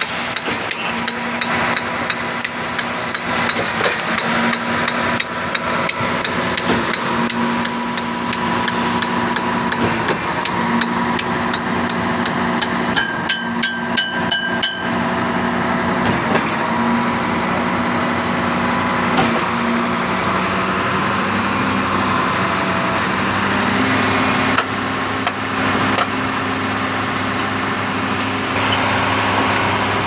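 Hammer blows on the steel pipeline of a concrete pump truck, struck repeatedly through the first two-thirds, with a fast run of knocks about halfway, over the steady running of the truck's engine and pump. This happens while the line is being cleaned out by passing a ball through it.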